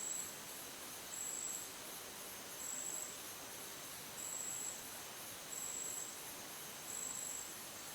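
A cricket chirping: short, high chirps repeating about every second and a half, over a faint steady hiss.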